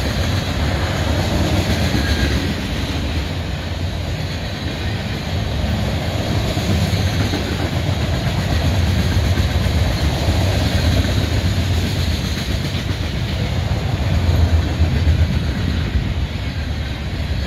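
Freight cars of a CSX manifest train (tank cars and covered hoppers) rolling past: a steady rumble of steel wheels on the rails with a clickety-clack.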